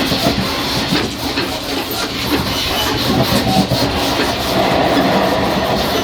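Taiwan Railways EMU500 electric multiple unit heard at the gangway between two cars while running: a steady rumble of wheels on rail with scattered knocks and rattles from the car connection. A steady higher hum joins about four and a half seconds in.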